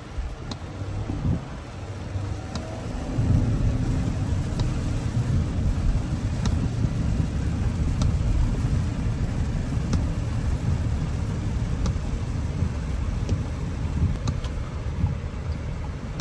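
Audi Q7's supercharged V6 and road noise on a test drive after new spark plugs were fitted for a misfire: a steady low rumble that grows louder about three seconds in, with a few faint clicks.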